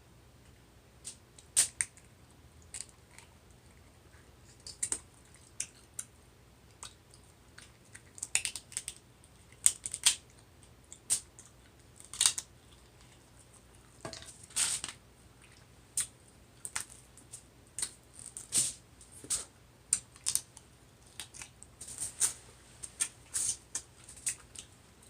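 Close-miked eating of shellfish: irregular wet clicks, smacks and small cracks of chewing and picking at seafood, coming in short clusters.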